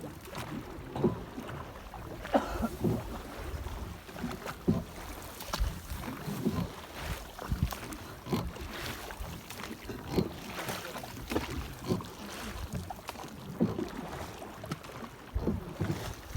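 Small rowed boat on a lake: water splashing and knocking against the hull in irregular strokes, about one or two a second.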